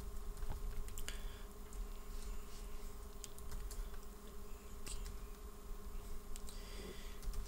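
Computer keyboard keys tapped one at a time in a slow, scattered run of clicks, over a steady faint background hum.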